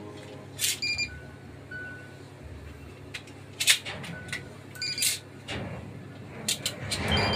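A series of sharp clicks, some with a short faint beep, from switches and buttons being pressed on a ship's wheelhouse console; the sound grows louder near the end.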